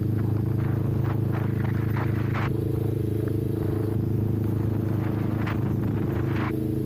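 Kawasaki Ninja 400's parallel-twin engine running at steady revs, with a few short scratchy noises over the top.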